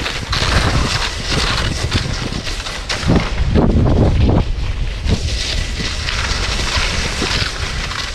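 Wind buffeting the microphone while being pulled fast over snow behind a harnessed sled dog, mixed with the rushing of gliding over the snow.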